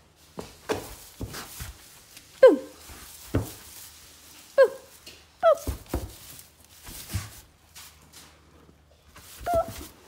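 Young calf moving in a straw-bedded wooden pen: repeated knocks and thumps against the boards, with four short calls that drop quickly in pitch, the loudest about two and a half seconds in.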